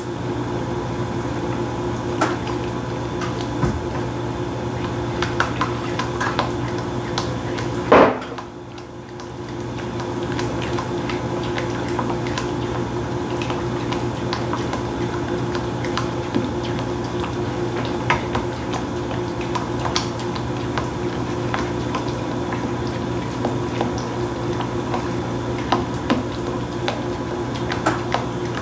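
A cooking utensil clinking and scraping against a pot as a mixture is stirred, with one louder knock about eight seconds in, over a steady hum.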